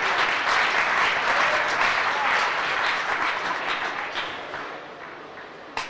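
Arena crowd applauding a won rally point, loudest over the first few seconds and then dying away. A single sharp knock near the end.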